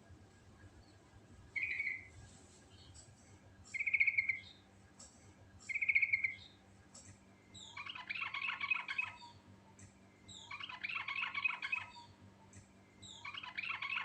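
Yellow-vented bulbul (trucuk) singing: three short clear notes about two seconds apart, then three longer fast, bubbling, chattering phrases, each about a second and a half long.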